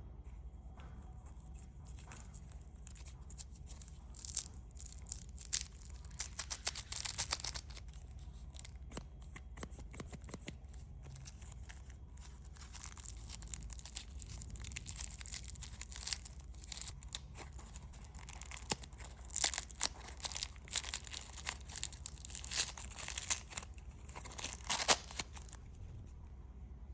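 Candy wrappers being torn open and crinkled by hand, in irregular bursts of crackling and sharp ticks that come and go for most of the stretch.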